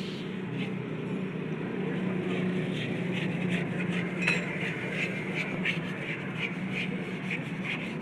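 Irregular light metallic clinks and taps, as of hand tools and small metal parts being handled, over a steady low hum.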